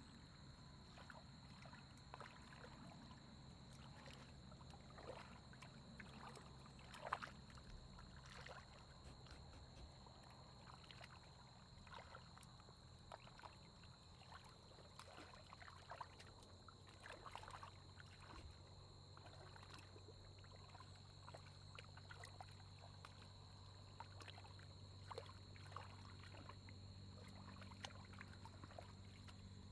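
Faint splashing and sloshing of hands groping through shallow muddy paddy water, in scattered small splashes, the loudest about seven seconds in, over a steady low hum.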